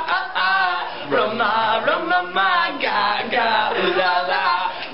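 A small group of young people's voices singing together, loud and excited.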